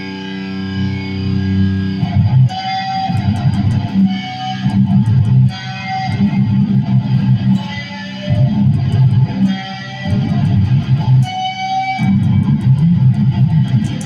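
Electric guitar playing: a chord held ringing for about two seconds, then rhythmic strummed and picked playing with brief gaps.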